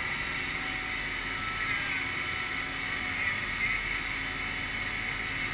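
Amphibious truck under way on a river: its engine runs steadily under the constant rush of its wake along the hull.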